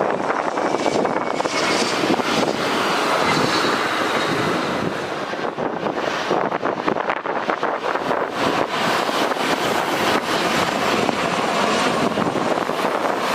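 Jet engines of an Embraer Legacy 600 business jet on landing approach: a steady rushing engine noise with a faint high whine that drifts in pitch during the first few seconds.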